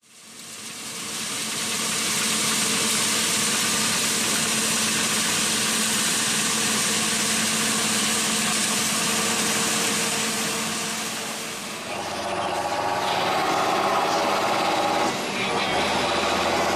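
New Holland TC5.80 combine harvester running, a steady loud hiss of machinery over a constant hum, fading in at the start. About twelve seconds in it gives way to a John Deere tractor's engine heard from inside the cab, with a brief dip near the end.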